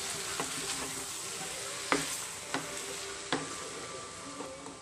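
Potato, capsicum and onion sizzling in oil in a metal kadai while being stirred with a wooden spatula, which knocks and scrapes against the pan several times.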